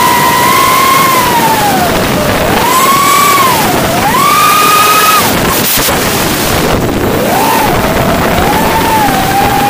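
Motor and propeller of a small low-flying model aircraft whining, its pitch rising and falling with the throttle, cutting out about five seconds in and picking up again some two seconds later, under heavy wind rush on the onboard microphone.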